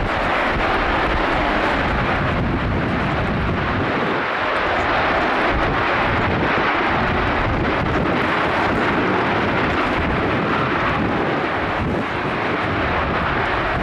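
Jet engine of a STOVL fighter running loud and steady in flight: a continuous rushing noise that holds its level throughout.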